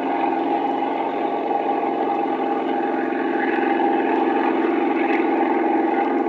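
An engine running at a steady speed, a continuous drone that gets slightly louder about halfway through.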